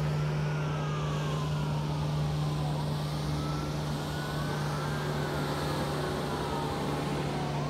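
Several emergency-vehicle sirens wailing together, their pitches slowly rising and falling and overlapping, over a steady low hum.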